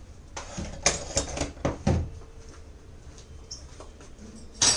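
Lid of an electric pressure cooker being unlocked and lifted off: a quick run of clicks and metal knocks in the first two seconds, then one sharp clack near the end.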